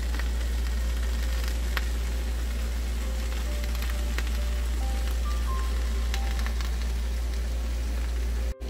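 Sliced okra and onions sizzling in a frying pan, with scattered small pops, over a steady low hum. The sound cuts out briefly near the end.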